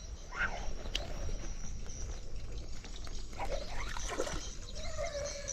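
Outdoor ambience by water: a steady high insect drone with a few short animal or bird calls, a longer falling call near the end, and trickling water.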